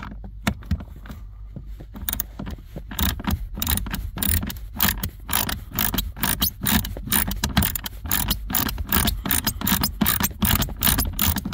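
Ratchet with a Torx T20 bit socket clicking as it backs out a screw holding the blower motor. The clicks come sparsely at first, then settle after about two seconds into a quick run of about three to four a second.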